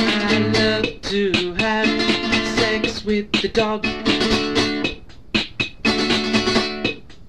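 Music: a song with guitar over a rhythmic beat, dipping briefly a couple of times.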